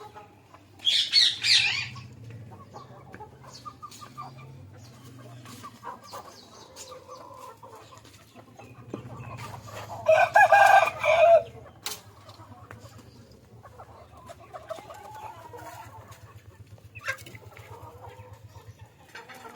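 Rooster crowing once near the middle, a loud call about a second and a half long, over low clucking from the flock. A shrill, high bird call sounds briefly about a second in.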